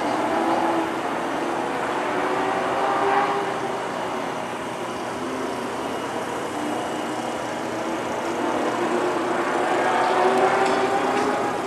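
Vehicle engines running steadily, swelling a little about three seconds in and again near the end.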